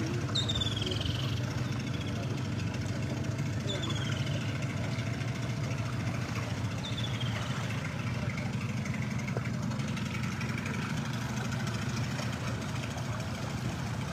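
Boat engine running steadily: an even motor hum with no change in speed. Three short, high falling whistles come through it in the first half.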